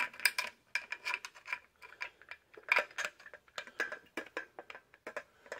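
Steel carriage bolts clinking against a square steel bench tube as they are worked by hand through its holes: an irregular string of light metallic clicks and taps, some with a faint ring.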